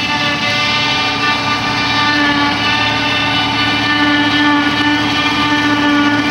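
Self-propelled forage harvester chopping grass from the swath under load, with a John Deere tractor pulling the trailer alongside: a steady high whine over the drone of the engines. It grows slightly louder as the machines approach.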